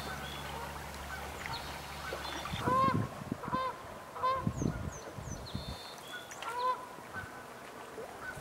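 Geese honking: three short honks about a second apart starting near three seconds in, and another a couple of seconds later, with small birds chirping faintly. A low steady hum runs under the first two seconds or so and then stops.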